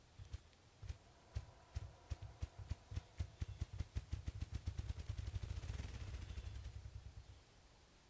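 Male ruffed grouse drumming: its wingbeats make low thumps that start slowly and speed up into a continuous low whir, which fades out about seven seconds in. This is the male's spring display to claim territory and draw females.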